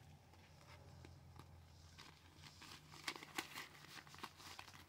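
Faint rustling and soft clicks of paper cash and envelopes being handled, heavier from about three seconds in, over a low steady hum.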